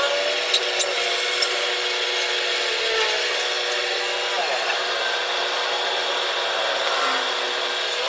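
A power tool running steadily, with a few sharp clicks early on.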